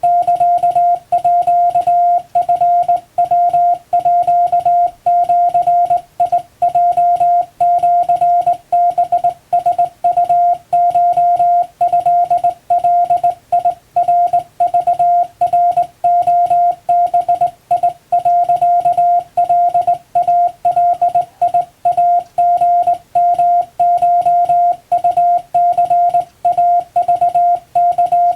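Hand-keyed Japanese (wabun) Morse code: a single steady beeping tone switched on and off in short dots and longer dashes, with brief pauses between characters.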